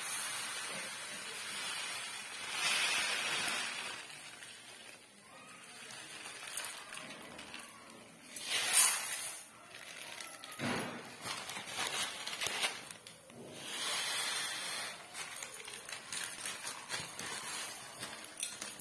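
Sugar poured from a steel tumbler into an empty aluminium pot: several pours, each a rushing hiss of crystals, the loudest about nine seconds in, with a few light knocks in between. The sugar is being measured out, one and a half tumblers, for a sugar syrup.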